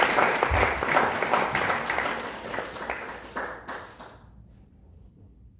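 Audience applauding, thinning to a few scattered claps and dying away about four seconds in.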